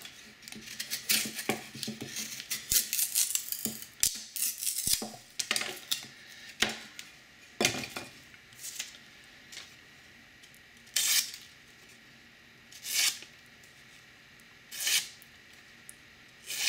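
Knife blade cutting into pine: a run of scraping, clicking whittling strokes, then single slicing cuts about every two seconds. The blade is a Maxamet-steel Spyderco Mule Team, and the cuts test the strength of its freshly sharpened edge.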